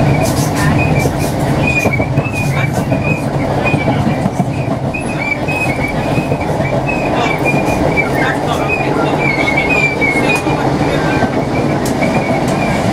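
Interior of a Class 318 electric multiple unit running, with a steady rumble and scattered clicks from the wheels on the track. A wavering high squeal of the wheels against the rails runs through it.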